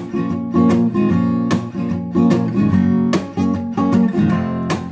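Acoustic guitar strumming chords, with sharp strokes a little under a second apart over the ringing chord.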